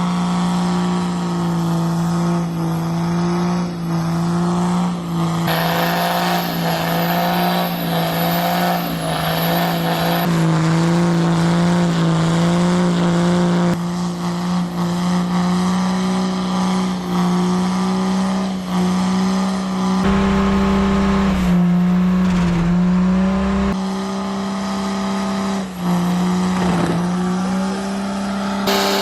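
Car engine held at steady high revs during a burnout, with tyre squeal; the sound jumps abruptly several times at edits.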